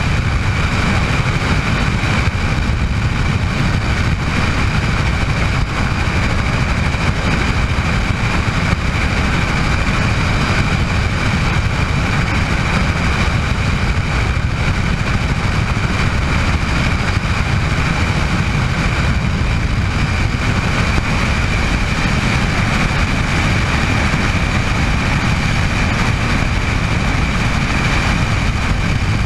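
Bell 206 JetRanger helicopter's Allison 250 turboshaft and rotors running steadily: a loud, even rumble with a constant high whine over it.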